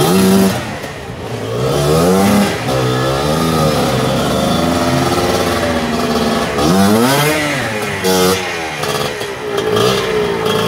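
Dirt bike engine revving up and down in repeated surges under load as the bike is worked over boulders, with one big rise about seven seconds in, settling to a steadier note near the end.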